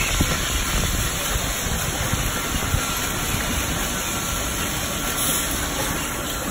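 Tunnel car wash equipment in operation: Belanger SpinLite wrap-around brushes spin against a car under water spray, giving a steady rushing wash noise over a low, fluttering rumble.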